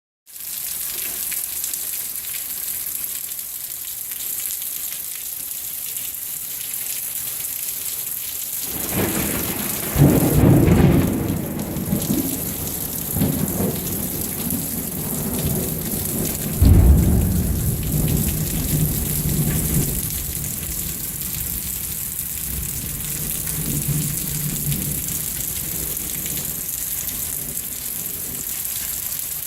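Thunderstorm with steady pouring rain. Thunder rumbles in about nine seconds in, with two loud claps about ten and seventeen seconds in, and dies away by about twenty seconds. A fainter rumble follows a few seconds later.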